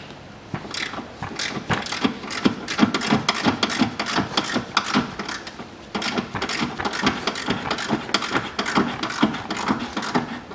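Ratchet wrench clicking in quick back-and-forth strokes while working out a rusted bumper screw that turns stiffly, with a short pause about halfway through.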